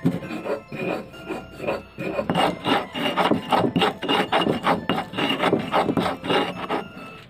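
Stone pestle grinding spices against a shallow stone mortar (Indonesian cobek and ulekan): rhythmic gritty scraping rubs, sparser for the first two seconds, then steady at about three to four strokes a second.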